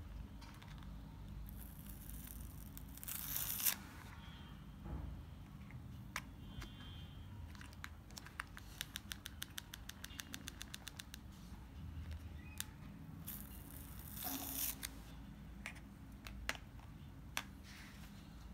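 A PopSocket phone grip being handled and twisted on the back of a phone: two bursts of hissy scraping, and in the middle a quick run of small plastic clicks, about seven a second for three seconds, with scattered single ticks.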